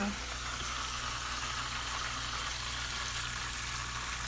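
Hot canola oil bubbling in a deep fryer, a steady hiss, with a low steady hum underneath.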